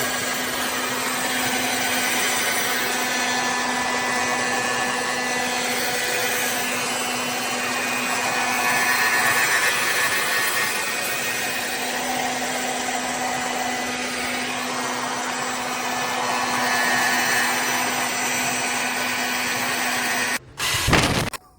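CONFU 1600 W ionic hair dryer running, its fan blowing a steady rush of air with a constant low hum that swells slightly now and then. Just before the end it cuts off abruptly and a louder, uneven sound takes over.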